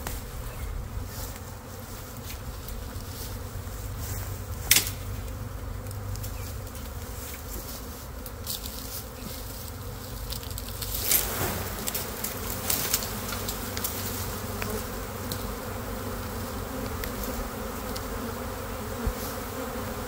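A honeybee swarm buzzing steadily and densely while its cluster is pulled down from a branch and disturbed. A sharp knock comes about five seconds in, and a broader thump around eleven seconds.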